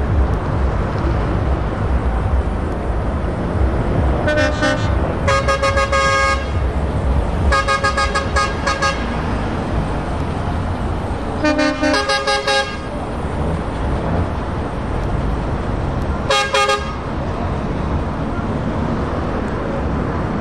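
Heavy truck diesel engines rumbling as the trucks drive off, with five blasts of truck horns, each a chord of several tones: a short one about four seconds in, longer ones near five and seven and a half seconds, another near eleven and a half seconds in a lower pitch, and a short one about sixteen seconds in.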